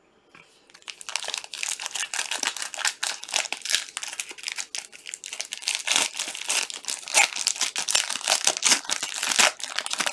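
Plastic wrapper of a Panini Prizm trading-card pack being torn open and crinkled: a dense, continuous crackling that starts about a second in.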